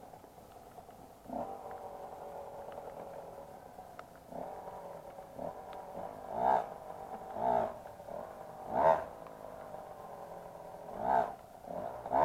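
Enduro motorcycle engine idling, with several short throttle blips in the second half.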